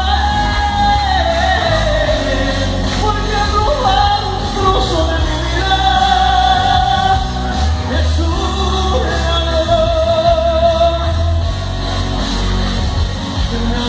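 A man singing live into a microphone, amplified, over a loud backing track with heavy bass.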